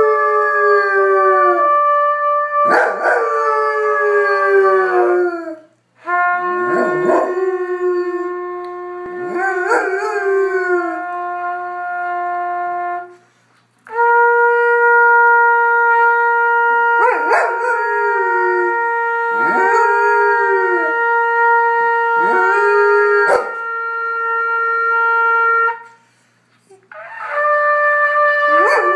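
A trumpet plays long held notes while a goldendoodle howls along, its howls sliding down in pitch over the trumpet's steady tones. The playing stops briefly three times and starts again.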